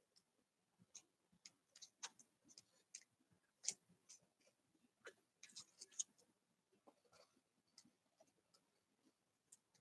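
Near silence with faint, irregular light clicks and rustles as fingers press and arrange yarn on a paper journal page.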